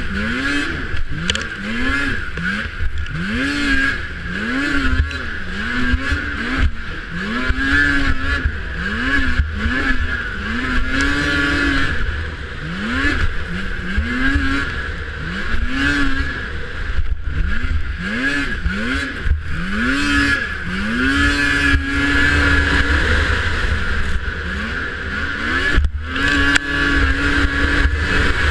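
Racing snowmobile engine revved hard again and again: its pitch climbs and drops about once a second as the throttle is worked, held steady briefly twice near the end. A constant high whine and wind rumble on the microphone run underneath.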